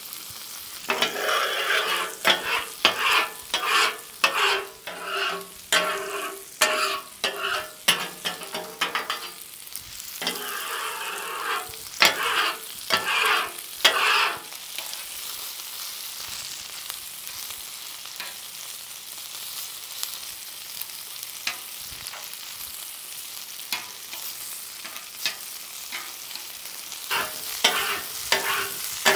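Chicken chunks shallow-frying in oil on a Blackstone steel flat-top griddle, a steady sizzle. Over it, a metal spatula repeatedly scrapes and taps the griddle top as the pieces are moved and turned. The scraping is busy for the first half, nearly stops in the middle, and starts again near the end.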